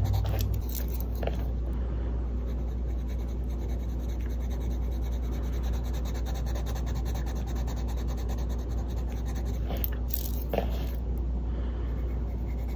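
Caran d'Ache Luminance colored pencil lightly scratching across paper as colour swatches are filled in, over a steady low hum. There are a few faint clicks about a second in and again around ten seconds in.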